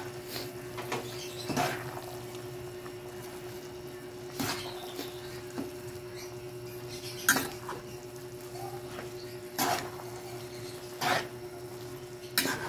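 Tongs and a spatula scraping and knocking against a metal wok as a large batch of noodles is tossed and mixed. The clatters come every second or two over a steady low hum.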